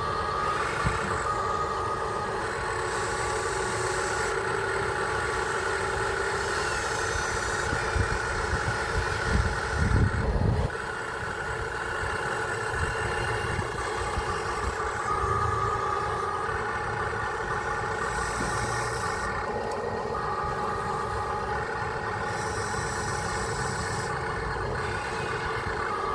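Radio-controlled construction truck running: a steady mechanical whine from its small motors and gearing that comes and goes every few seconds, with a louder burst of low rumbling about ten seconds in.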